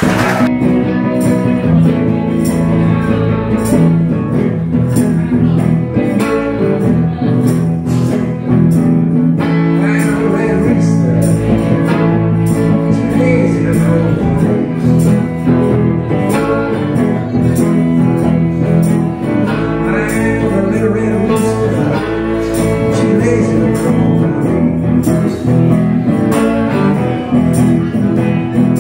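Live blues band playing, with electric guitar and a hollow-body archtop guitar over a steady beat.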